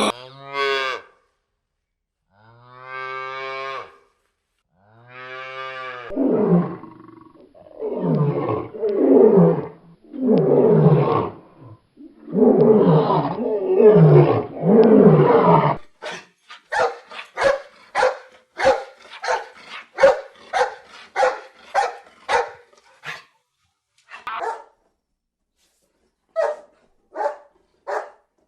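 A series of animal calls: two long pitched calls, then a run of loud calls that each fall in pitch, then many short, sharp calls in quick succession, with a few more near the end.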